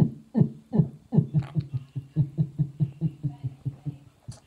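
Beatboxing: short, low, pitched vocal hits that drop in pitch, about two or three a second, then a faster, even run of low hummed hits about five or six a second from a little over a second in.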